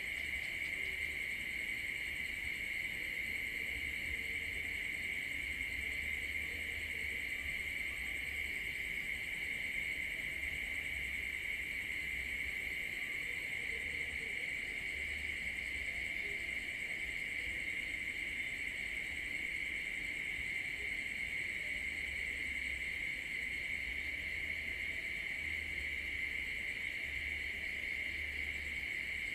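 Night chorus of crickets and other insects, a steady high-pitched trilling that does not let up.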